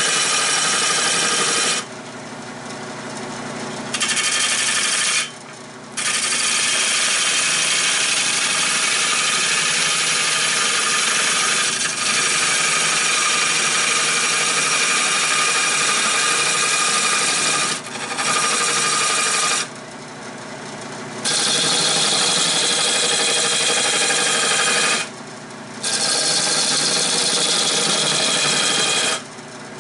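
Turning tool cutting a redbud bowl blank spinning on a Nova 16/24 wood lathe: a loud, steady scraping hiss with a whine. The cutting sound drops away five times for one to two seconds as the tool comes off the wood, leaving the quieter running of the lathe.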